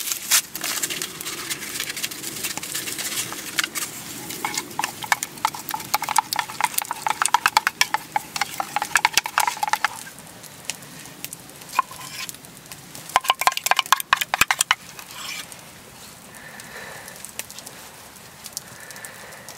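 A wooden stick stirring tomato sauce in a stainless steel cup, rapid clicking and scraping against the metal, with the cup ringing toward the end of the stirring. About ten seconds in the stirring stops, and a few shorter bouts of scraping follow as the sauce is tipped out and spread with the stick.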